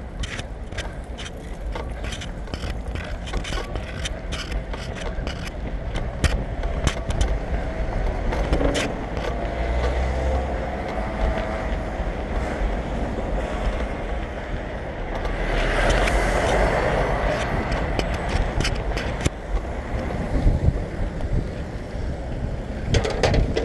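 Road traffic passing close by, with one vehicle swelling up and passing about two thirds of the way through, over a constant low wind rumble on the microphone. Earlier, a quick run of sharp ticks sounds, about two or three a second.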